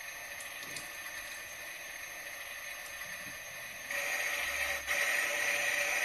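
Modified Miele toy washing machine running a wash programme: a steady mechanical running noise that steps up louder about four seconds in, with a brief dip a second later.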